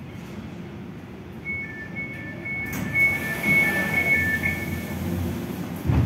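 Doors of a British Rail Class 345 train and its platform screen doors opening at the platform: a two-note warning beep repeats about twice a second for some three seconds, with a hiss as the doors slide open and a thump near the end.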